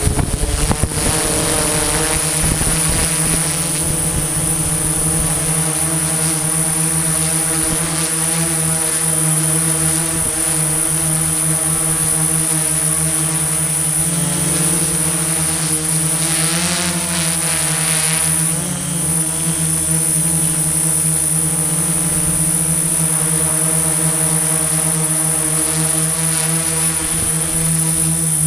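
Engine of construction machinery running steadily with a droning hum and a thin high whine; its pitch wavers briefly a little past halfway.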